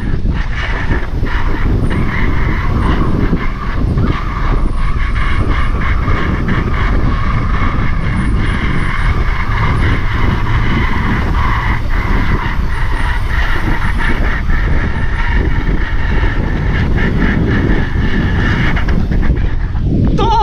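A bicycle riding on its back wheel along an asphalt street: wind rushing over the camera microphone with tyre rumble, a steady whir and light rattles from the bike.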